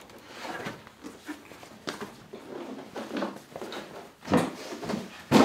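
Clunks and knocks of a stock Vanagon Westfalia kitchen cabinet being handled and carried, with a loud thump near the end.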